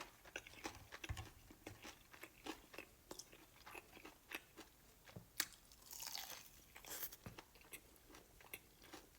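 Close-up crunching and chewing of crispy fried chicken: a quick run of short, sharp crackles as the crust is bitten and chewed, with one louder crunch about halfway through.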